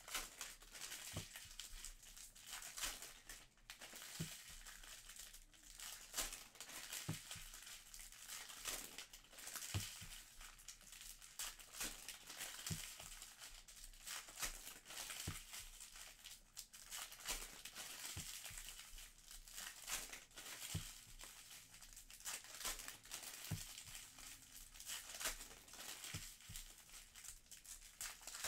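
Plastic and foil wrappers crinkling and rustling as trading-card packs are handled and opened, with a light tap every few seconds as cards are set down.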